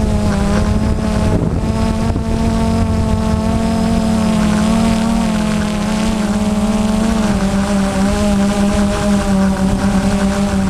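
Multirotor camera drone's electric motors and propellers humming steadily as it hovers, heard from its own onboard camera; the pitch wavers slightly and drops a little about seven seconds in.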